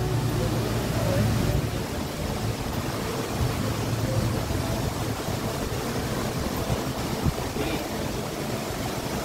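Steady rushing street ambience with traffic, with a low hum that fades out within the first few seconds and a single short knock about seven seconds in.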